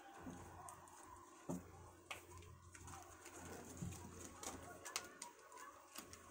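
Faint scattered taps and scuffles of kittens playing at a carpeted scratching post and on a foam floor mat, over a low steady hum.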